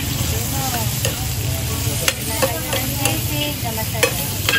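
A metal spatula and spoon scrape and clink against a hot pan as chopped meat and onions are stirred and sizzle. There are several sharp clinks and short metallic squeaks over a steady frying hiss.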